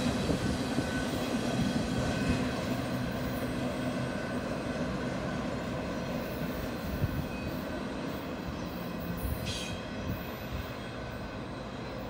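Tail end of a Union Pacific double-stack container freight train rolling past and away, with the steel wheels rumbling on the rails and a faint wheel squeal. The sound fades steadily as the last cars pull away.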